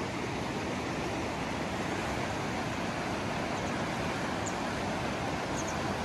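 The Ganges rushing swiftly over a rocky bed: a steady wash of flowing water.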